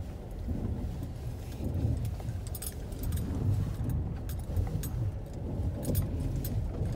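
Vehicle driving slowly over rough river ice, heard from inside the cab: a steady low rumble of tyres and engine with scattered sharp clicks and rattles.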